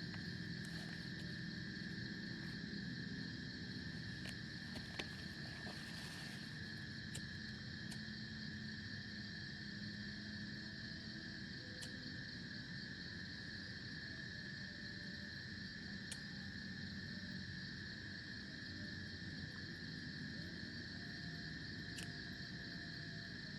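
Insects chirring in a steady, unbroken forest chorus at two high pitches, over a low rumble, with a few faint sharp ticks.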